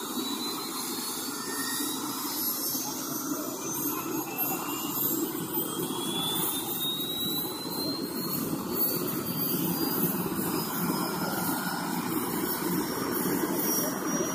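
Helicopter turbine engine spooling up during start: a high whine climbing steadily in pitch over a steady rushing engine noise as the rotor begins to turn.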